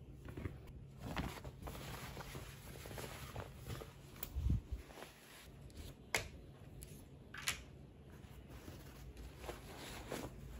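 Cloth rustling and handling noise as muslin cloths and bedding are gathered, with a low bump near the middle and two sharp plastic clicks a little later as clips are unclipped from the cot rail.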